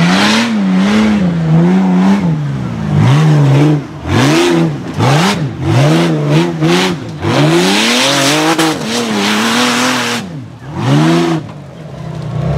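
Rock bouncer buggy's engine revved hard in short repeated bursts as it climbs a steep dirt hill, its pitch rising and falling roughly once a second.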